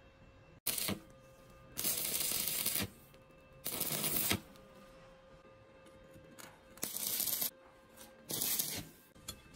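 Stick (arc) welding crackling in five short bursts, each lasting up to about a second: the electrode making tack welds that fix a steel hinge rod to a flat steel plate.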